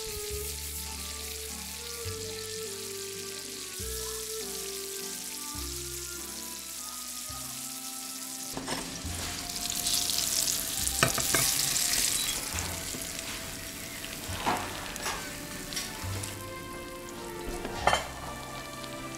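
Apple wedges frying in butter and sugar in a nonstick pan, sizzling steadily. About ten seconds in the sizzle grows louder as the pan is tipped and the apples slide out into a bowl, with a few knocks of the pan. Soft background music plays underneath.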